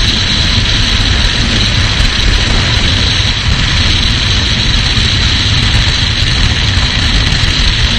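Loud, steady rush of freefall wind buffeting the camera's microphone: a heavy low rumble with a hiss above it.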